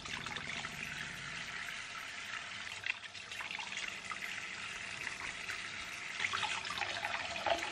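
Tap water running steadily into a bathroom sink, a steady hiss, while a makeup brush is rinsed under the stream and rubbed in a wet palm.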